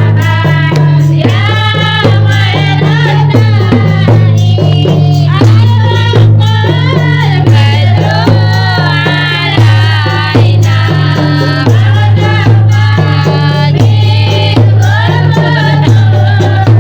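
Gambus-style sholawat music: a wavering melodic lead over a pulsing bass beat and regular hand percussion.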